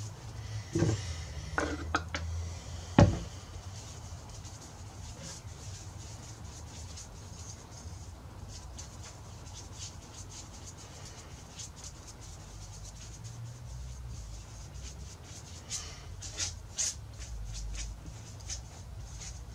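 Objects being handled on a workbench: a few sharp knocks in the first three seconds, then a faint low hum with scattered light clicks and taps near the end.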